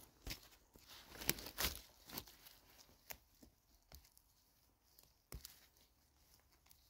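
Faint, scattered crackling and rustling of someone moving on a forest floor while picking mushrooms, with a few sharp snaps of twigs or stems among quiet gaps.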